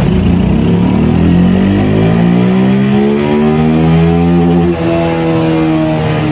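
Motorcycle engine revving up under load on a chassis dynamometer, its pitch climbing steadily through the run, with a brief dip in level about three-quarters of the way through.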